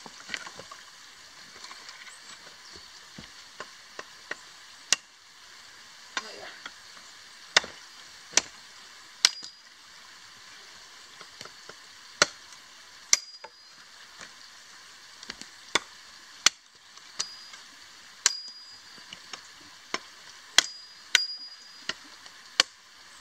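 Machete chopping side branches off a piece of wood: irregular sharp strikes, roughly one a second, many leaving a brief high metallic ring from the blade.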